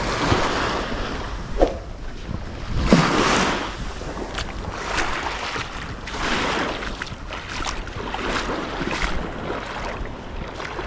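Shallow sea water sloshing and splashing around the legs of someone wading in waders, swelling every second or two, with small waves lapping and wind on the microphone.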